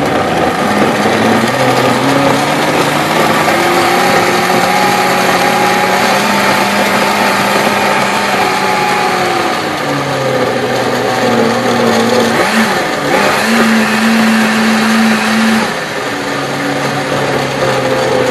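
High-speed countertop blender running loud, blending a jar of thick tamarind sauce. Its motor pitch shifts several times as the speed dial is turned, with a brief dip and rise about twelve seconds in and a step down a few seconds later.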